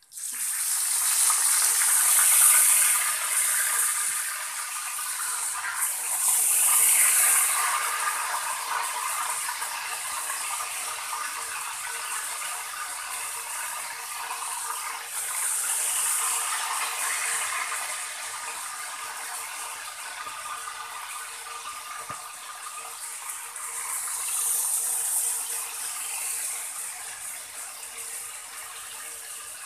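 Pork steak slices frying in hot oil in a wok, with loud sizzling and crackling. The sizzle swells several times as more pieces go into the oil, then settles back to a steady fry.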